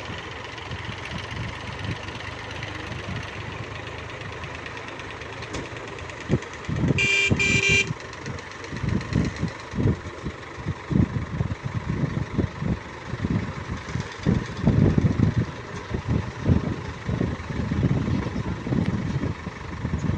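Engines of heavy machinery running, with a vehicle horn giving two short blasts about seven seconds in; after that the engine noise comes in irregular low surges.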